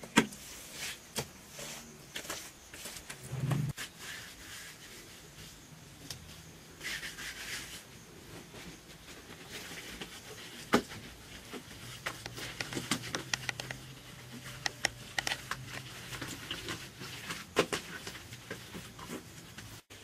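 Scattered scrapes and sharp taps of hand work on a mud-plastered earthen pit wall, with a dull thud about three and a half seconds in and a louder knock about eleven seconds in.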